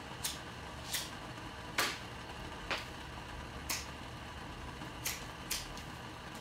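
A cigarette lighter being flicked again and again, about seven sharp strikes spaced a second or less apart, the loudest about two seconds in. Under the clicks is a low steady room hum.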